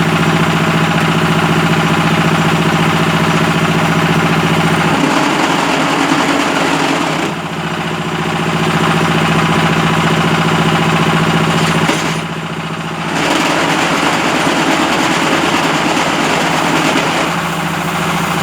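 Concrete paving-block and batako moulding machine running with a loud, steady mechanical hum and vibration. The tone of the running changes about five seconds in, and the sound drops off briefly twice, near the middle and again a few seconds later, before picking up again.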